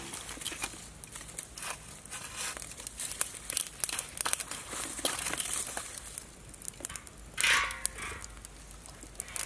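Wood fire crackling and snapping, mixed with the rustle of dry leaves and sticks being handled. About seven and a half seconds in, a louder brief scrape as a metal wok is set down over the burning logs.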